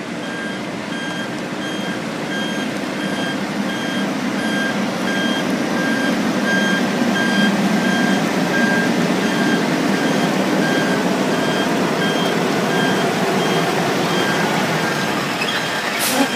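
Diesel dump truck backing up: its reversing alarm beeps steadily about once a second over the engine's running, which grows louder as the truck comes closer.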